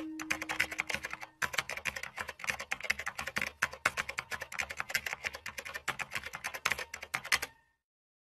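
Rapid computer keyboard typing, many quick key clicks that stop shortly before the end. The fading tail of a chime tone rings under the first second.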